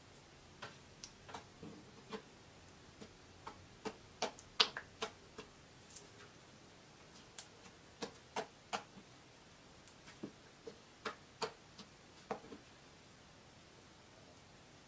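Slime being squeezed and poked, making irregular sharp clicks and pops, with the loudest cluster about four to five seconds in.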